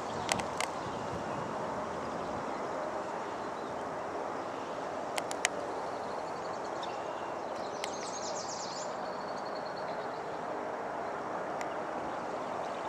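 Open marsh ambience: a steady rushing background noise, with a bird singing a short, rapid high-pitched phrase about eight seconds in. A few sharp clicks come near the start and around five seconds in.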